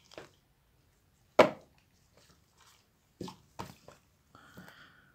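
Small cardboard boxes handled and knocked down on a table: one sharp tap about a second and a half in, three lighter knocks a couple of seconds later, then faint rubbing of the boxes near the end.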